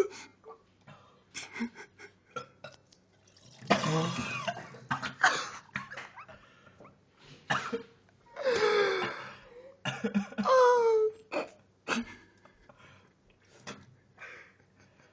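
A man retching and coughing over a sink, vomiting after the cinnamon challenge, with several loud heaves that end in falling groans, about 4, 8 and 10 seconds in, and short coughs and gasps between them.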